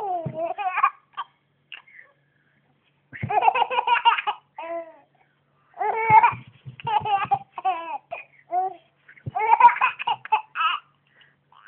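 Young baby laughing in about four bouts of high, breathy laughter, with pauses of a second or two between them.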